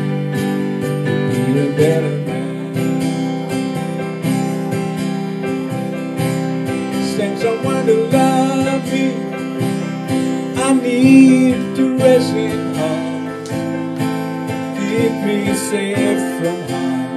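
Instrumental passage of live music: steady acoustic guitar strumming with a stage keyboard playing sustained chords and a melody line.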